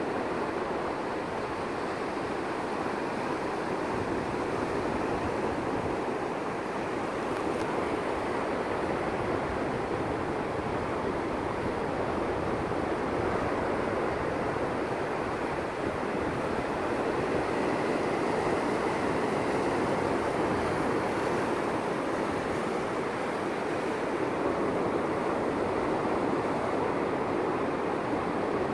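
Ocean surf breaking and washing up a sandy beach: a steady rushing noise that swells and eases gently.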